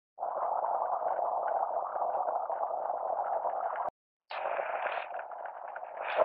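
Fast-flowing rocky stream rushing, a steady rush of water. It cuts off briefly about four seconds in, then a rougher, uneven noise follows.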